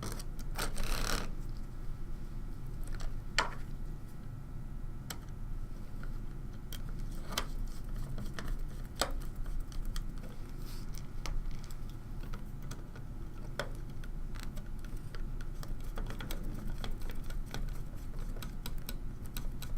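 Irregular small clicks and taps of screws and nuts being fitted by hand through a plastic mounting plate holding a Raspberry Pi, over a steady low hum.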